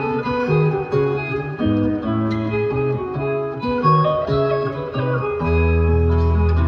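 Music played on plucked guitar, a quick run of picked notes; about five seconds in a low note comes in and holds under the melody.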